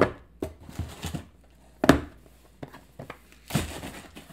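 Cardboard knife boxes being handled and set down on a cloth-covered table: a handful of separate knocks and taps, the loudest about two seconds in, then a brief rustling slide a little after three and a half seconds.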